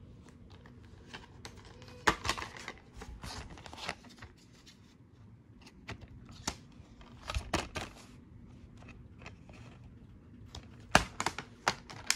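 Plastic DVD case being handled: turned over, snapped open and later shut, giving a series of sharp plastic clicks and rubbing. The loudest snap comes near the end as the case closes.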